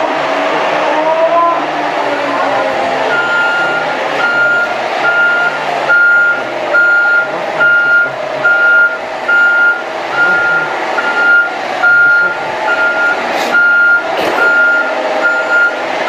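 JCB telehandler engine running under load while its bedding spreader throws material, with the machine's reversing alarm beeping steadily about once a second from about three seconds in.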